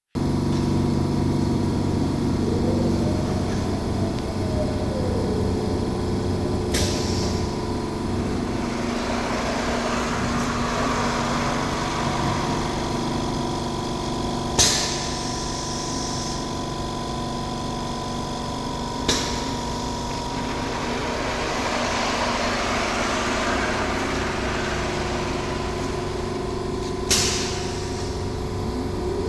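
Semi-automatic solder paste stencil printer running: a steady motor hum with a rising and fading mechanical wash, and four sharp clicks spread through it.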